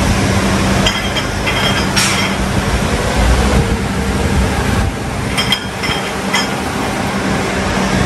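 A steady hum of workshop machinery, with a few light metal-on-metal clinks as a custom bush is set up and pressed into an engine-mount housing on a hydraulic shop press. The clinks come about a second in and again around six seconds.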